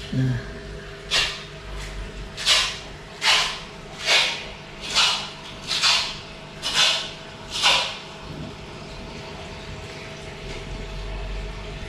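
Water splashing and sloshing in a shallow plastic tub around a handled arowana: eight short splashes at about one a second, then it settles. A faint steady hum runs underneath.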